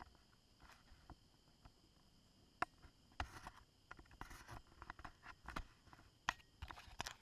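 Irregular sharp clicks and rattling knocks from a mountain bike rolling over a dirt forest trail, the strongest about two and a half and six seconds in, over a faint steady high hiss.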